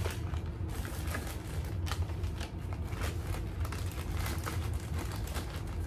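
Plastic snack packets and bags rustling and crinkling with small knocks as they are handled and put away, over a steady low hum.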